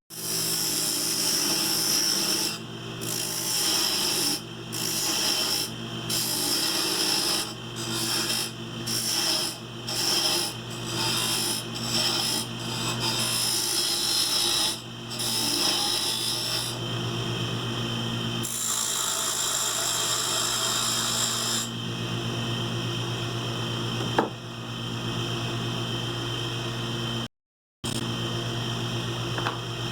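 Wood lathe running with a turning tool cutting a spindle of Alaska yellow cedar, rounding off the square corners. The cutting comes and goes in repeated passes about once a second at first, then runs more steadily, over the lathe motor's steady hum.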